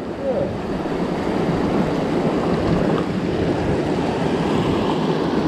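Steady rushing of a fast mountain river flowing over rocks.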